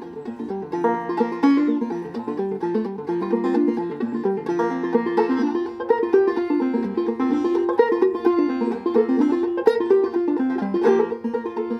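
Banjo playing an old-time or bluegrass tune, a quick, steady stream of plucked notes.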